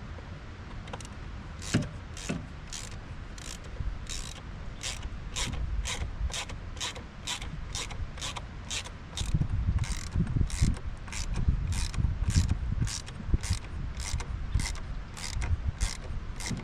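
Socket ratchet clicking in a steady rhythm, about two clicks a second, as a bolt is worked during a throttle body swap, with dull knocks of handling in the middle.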